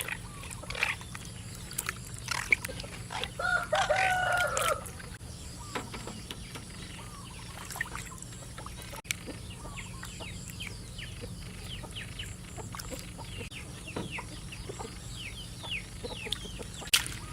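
A rooster crows once, about three seconds in, a pitched call of about a second and a half, among scattered short high chirps from the flock.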